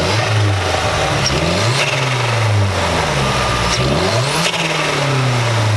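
Mazdaspeed's turbocharged 2.3-litre four-cylinder engine revved twice at a standstill, its pitch climbing and falling back each time. The blow-off valve is blocked off with a plate, so the turbo flutters as the throttle closes.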